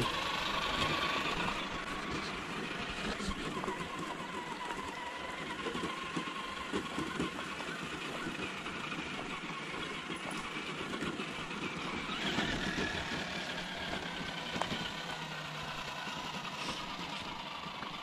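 Straight-axle Traxxas TRX-4 '79 Bronco RC crawler driving along a trail: its electric motor and gears whine, the pitch rising and falling with the throttle, with scattered small crunches from the trail.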